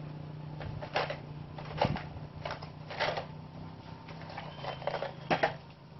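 Short scrapes and knocks, about six or seven of them, from hands and tools working the tyre and inner tube on a motorcycle rear wheel, over a steady low hum.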